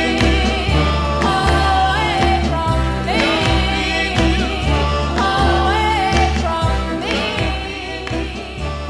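Early-1960s Motown pop-soul record: a woman singing over bass and band, the whole mix slowly fading down toward the end of the song.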